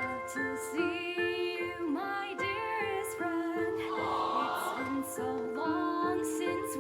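Show choir singing with a live band: held notes from the voices over the band's accompaniment.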